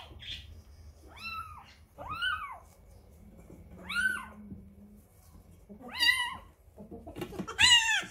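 Adult tabby cat meowing five times in complaint, each meow rising and then falling in pitch, spaced a second or two apart, the last one the loudest.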